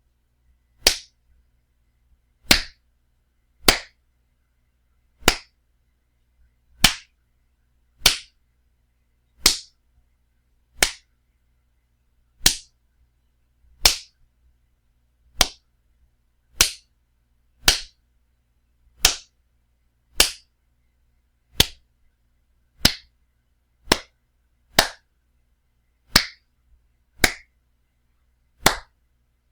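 Loud wet slaps, one at a time at a steady pace of about one every second and a half, each short and sharp.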